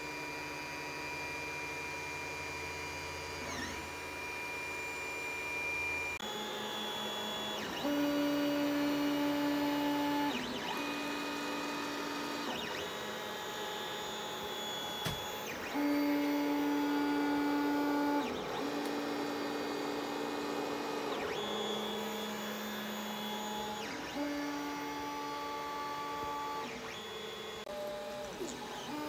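FDM 3D printer mid-print: its stepper motors whine at a string of steady pitches that switch every two to three seconds as the print head changes moves, over a steady hum.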